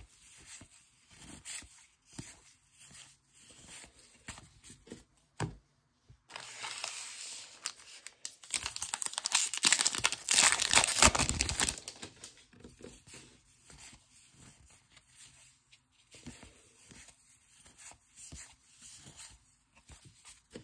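A trading card pack's wrapper is torn open and crinkled for several seconds midway, loudest near the middle. Before and after it there is quieter rustling and light clicks of baseball cards being handled and flipped through.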